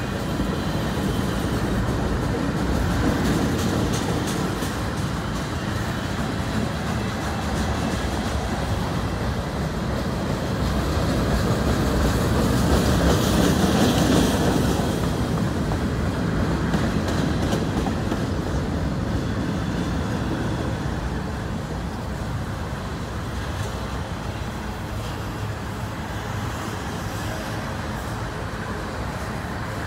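Cars of a passing CN freight train rolling by, a steady noise of steel wheels running on the rails that grows louder about 13 seconds in and then eases off a little.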